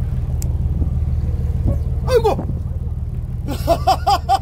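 A man bursting into loud, rapid, manic laughter ("hahahaha") about three and a half seconds in, after a short falling shout about two seconds in, over a steady low rumble.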